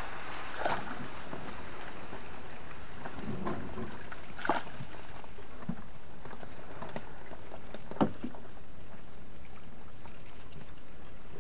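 A narrow wooden boat being poled through swamp water with a long bamboo pole: a few sharp knocks and splashes, the loudest about eight seconds in, over a steady hiss.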